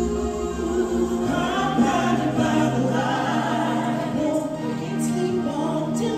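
Stage-show music with singing in long held notes over a sustained accompaniment.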